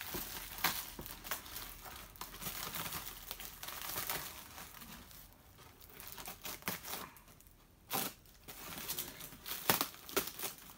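Brown kraft wrapping paper being torn and crumpled by hand as a parcel is unwrapped: irregular rustling and ripping, quieter for a few seconds in the middle, with a couple of sharp rips near the end.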